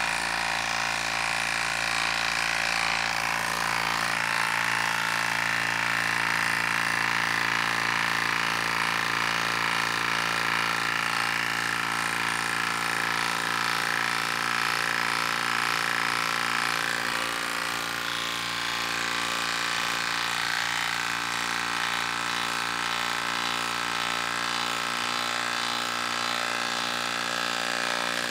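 Milwaukee M18 Fuel compact half-inch impact wrench hammering steadily under load as it drives a long lag screw into a wooden log. Its rhythm stays even and unchanging throughout, the anvil barely skipping its impacts.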